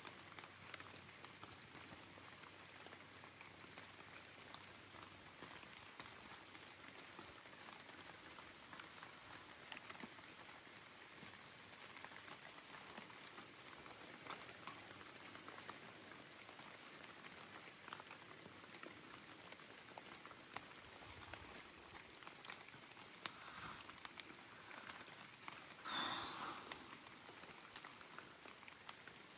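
Faint steady rain pattering, with many scattered small ticks of drops, and a brief louder rustle near the end.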